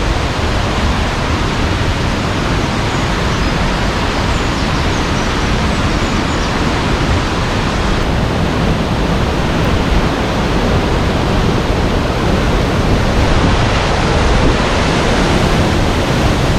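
Banias Waterfall pouring a high volume of water, a loud, steady rush of falling water with no let-up.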